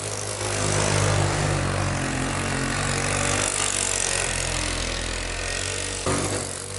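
Small engine of a three-wheeled ATV running while it is ridden, with a brief dip in level about six seconds in.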